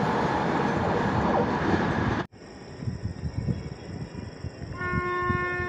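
Express train running past at speed: a loud, steady rush of wheel and rail noise that cuts off abruptly a little over two seconds in. After a quieter stretch, a distant locomotive horn starts near the end and holds one steady chord.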